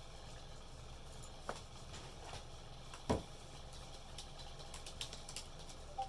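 Low steady hum with a few scattered clicks, including one louder knock about three seconds in and a small cluster of clicks near the end.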